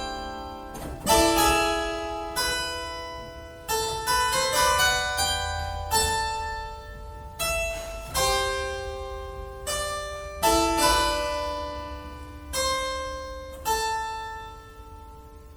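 Solo harpsichord playing slow, widely spaced chords, each plucked chord left to ring and die away before the next, about ten in all; the last one fades out near the end.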